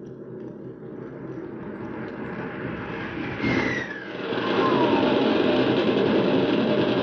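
Radio-drama sound effect of an aircraft making a diving attack run: engine noise builds up, a whistle falls in pitch about three and a half seconds in, then loud steady engine noise holds to the end.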